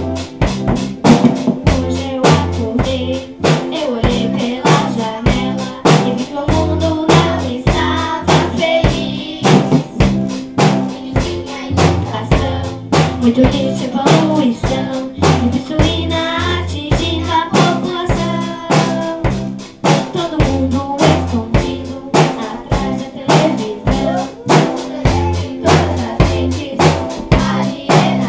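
Live band music: a drum kit keeps a steady beat of bass drum, snare and rimshots under a repeating bass line and melodic parts.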